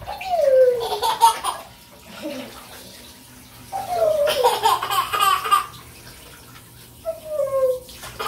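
Young children squealing and laughing in three bursts that slide down in pitch, over the steady hiss of water running from a hand shower into a bathtub.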